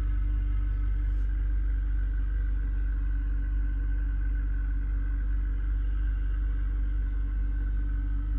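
BMW E46 330i's 3.0-litre inline-six idling steadily, heard inside the cabin, with a continuous noise from behind the dash by the passenger footwell that the owner can only call a kind of gurgling. With the blower fan switched off, he wonders whether it is a vacuum leak near the lower intake hose at the back of the engine.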